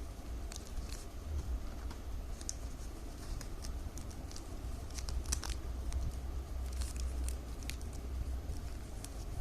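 Plastic strips cut from milk-powder bags crinkling and ticking as they are handled, folded and woven by hand. The sharp irregular clicks come every so often, with a cluster a little past the middle, over a steady low hum.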